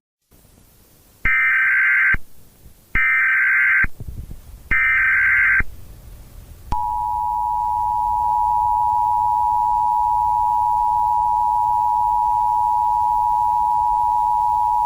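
Emergency Alert System tones. First come three short buzzy bursts of SAME digital header data, each about a second long. Then, from about seven seconds in, the steady two-tone EAS attention signal runs on.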